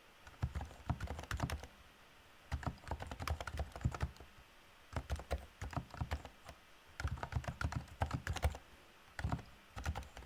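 Typing on a REALFORCE R2SA-US4M keyboard with Topre electrostatic capacitive switches: runs of quick keystrokes with soft, low thocks. The typing comes in five bursts of a second or two, with short pauses between.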